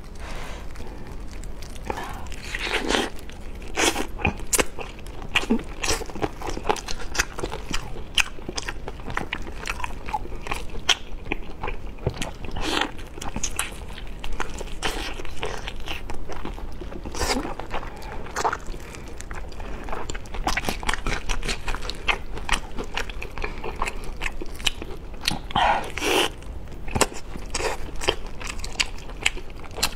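Close-miked eating of cola-glazed chicken wings: chewing and biting, with many short irregular clicks as the meat is torn and pulled from the bone and fingers are sucked, over a low steady hum.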